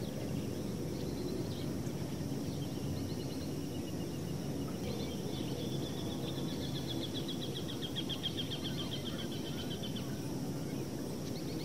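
Steady outdoor background noise with a small bird singing rapid trills over it, the longest trill running from about five to ten seconds in.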